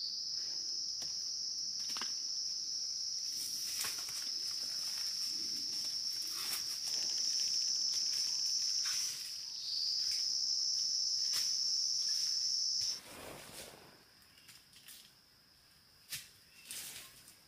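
A cicada's shrill, steady buzz, which stops for a moment about nine seconds in, starts again with a rising onset and cuts off about thirteen seconds in. Scattered light clicks and rustles sound underneath.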